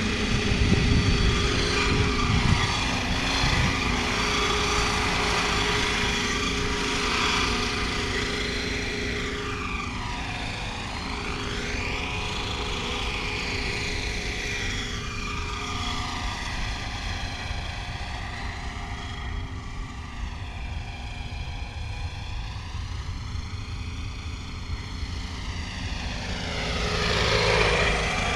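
Scale MD 520 radio-controlled helicopter flying, its rotor and motor mixed with the turbine whine of an Aerosound scale-sound module. The tones sweep up and down as it moves. It is loudest at lift-off and again as it swoops close past near the end.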